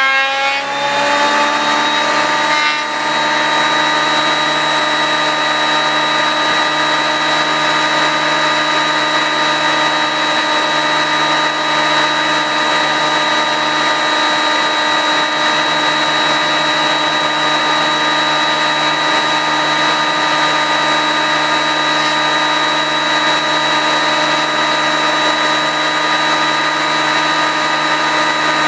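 Benchtop electric thickness planer running while long wooden boards are fed through it: a loud, steady motor whine over the hiss of the knives cutting, its pitch settling about a second in after spin-up. The builder reads the sound as the planer cutting one side of the board but not the other, a sign the board was of uneven thickness.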